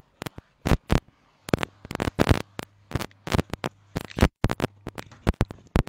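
A run of irregular sharp clicks and scratchy ticks, several a second, over a faint low hum.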